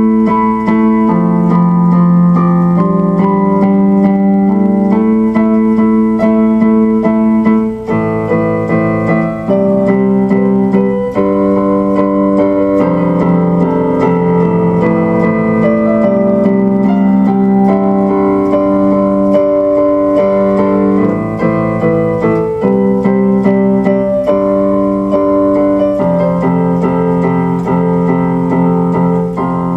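Background music: electric piano or keyboard playing sustained chords that change every second or two.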